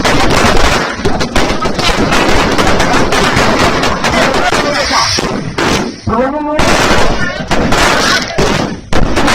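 Fireworks and firecrackers going off in a dense, unbroken run of bangs and crackles, with people's voices and shouts in the crowd beneath.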